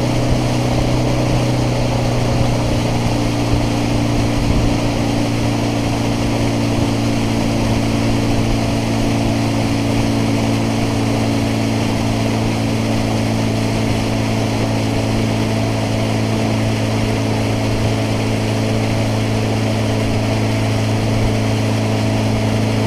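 Bass boat's outboard motor running steadily at speed, a constant engine hum under an even rush of wind and water.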